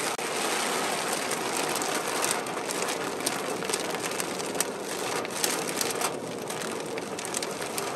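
A lot of rain pelting a moving car's windshield and body, over the steady hiss of driving on a wet road, with scattered sharp taps of large drops striking the glass.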